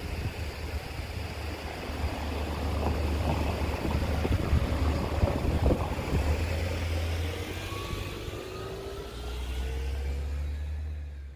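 Outdoor street ambience with wind rumbling on the microphone; over the last few seconds a car engine rises steadily in pitch as it accelerates.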